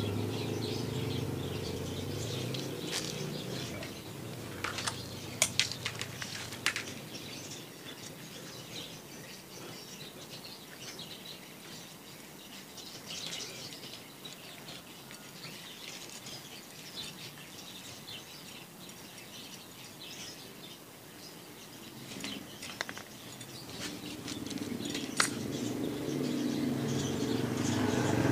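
Scattered light metallic clicks and scrapes as a metal rod pushes a lead pellet through an H2S air-rifle barrel to mark it with the rifling. A low hum fades out over the first few seconds and builds again near the end.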